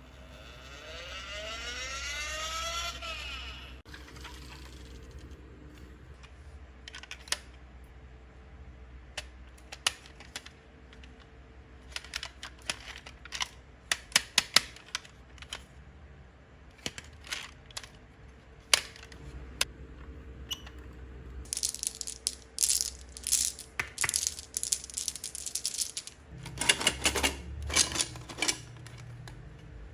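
Marbles rolling and clacking down a wooden marble run, first as scattered clicks, then as a dense clatter in the last several seconds. A rising, repeating whir sounds in the first few seconds.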